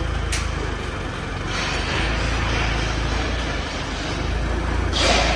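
LonKing forklift engine running steadily as the loaded truck climbs a steel mobile yard ramp, a low rumble throughout, with a short hiss near the end.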